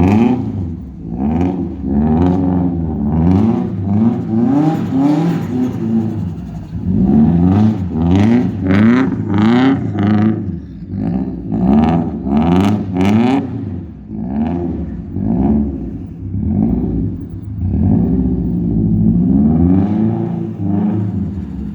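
Turbocharged Subaru Impreza flat-four boxer engine with a loud exhaust, revved up and down over and over, about once a second, with louder, rougher revving in the middle.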